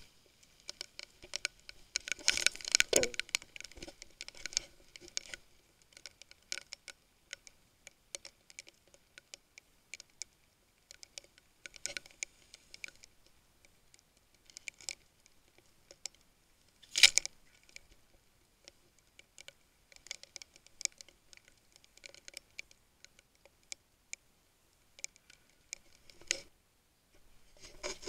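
Irregular sharp clicks and wet patter from a freshly caught squid on its jig being handled over rocks. The clicks come thickest in the first few seconds, with one louder burst about seventeen seconds in.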